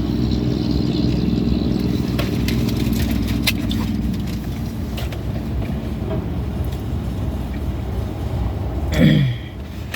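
Car engine idling steadily, heard from inside the cabin, with a few faint clicks. Near the end comes a brief falling vocal sound.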